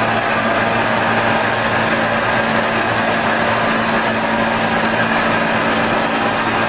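Disinfection robot's misting sprayer running, blowing disinfectant fog out of its twin nozzles: a steady machine hum over an even hiss.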